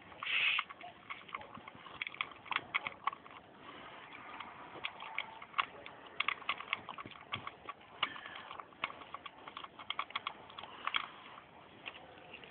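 Bouvier des Flandres puppy eating from a stainless steel bowl of dog biscuits and pasta: a run of irregular clicks and crunches as it chews.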